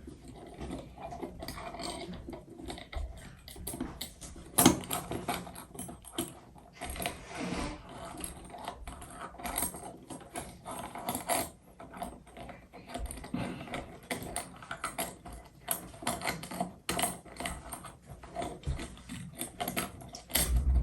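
Irregular clicks, knocks and light scraping of faucet parts being handled and dry fitted, with one sharper knock about four and a half seconds in.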